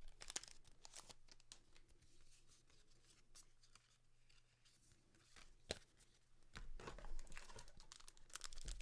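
Faint crinkling and rustling of a foil booster-pack wrapper and trading cards being handled, with one sharp click past the middle and busier rustling near the end.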